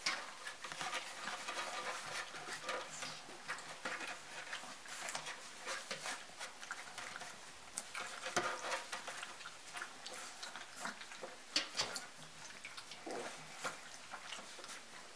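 Young golden retriever puppies eating from metal bowls and scrambling over a wooden plank and wood shavings: an uneven patter of small clicks and rustling. A few sharper knocks come about eight and a half and twelve seconds in.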